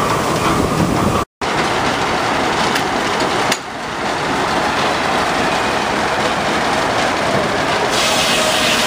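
Steam-powered sawmill machinery running with a steady, dense mechanical clatter of flat drive belts, pulleys and the log carriage on its rails. The sound breaks off for a moment about a second in, and a brighter, hissing noise builds near the end.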